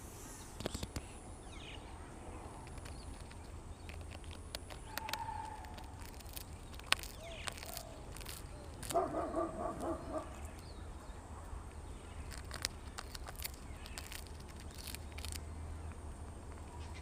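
Scattered sharp clicks and snaps, with a bird's short, harsh call pulsing several times a second about nine seconds in, over a steady low wind rumble.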